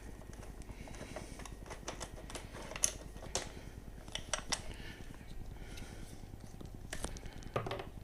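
Light metallic clicks and clinks of hand tools and fittings as a motorcycle mirror is undone and taken off, with a few sharper taps standing out over a faint steady hum.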